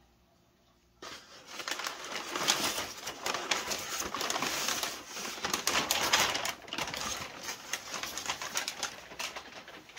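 Crumpled brown kraft packing paper crinkling and rustling as it is pulled out of a cardboard box, starting about a second in and going on in dense, uneven crackles.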